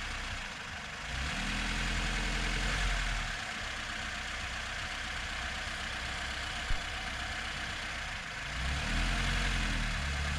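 Lada Niva's engine running under load on a muddy, rutted dirt road, revving up and back down twice, about a second in and again near the end, with a single short knock in between.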